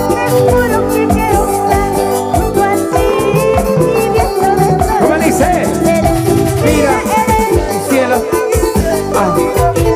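Live Latin dance band music playing loudly, with a steady beat, a shaker-style rattle and wavering melodic lines, in an instrumental stretch between sung lines.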